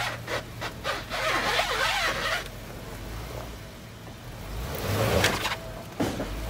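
Jeep crawling slowly over tree roots and dry leaves: a low engine hum under scraping and crunching from the tyres and ground, loudest for the first couple of seconds and again briefly near the end.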